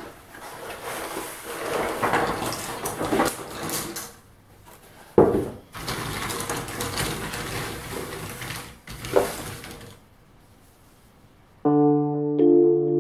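Cardboard jigsaw puzzle pieces rustling and clattering as they are tipped out of the box and spread by hand across a wooden table, with two sharper knocks about five and nine seconds in. Near the end, keyboard music starts with held notes.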